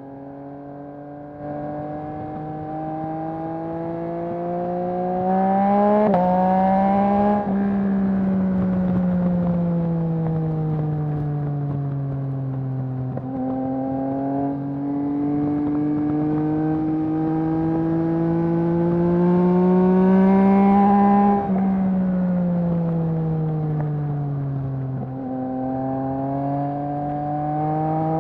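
Yamaha MT-09's 890 cc inline-triple engine through a Mivv full-system exhaust, heard while riding. The revs climb, drop abruptly twice as gears are shifted, fall away as the bike slows, then climb and fall again. Rough wind noise runs underneath.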